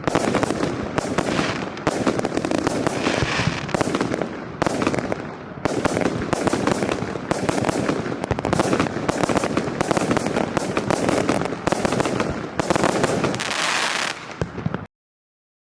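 Fireworks module cake firing a dense, continuous barrage of shots and crackling bursts. It stops abruptly shortly before the end.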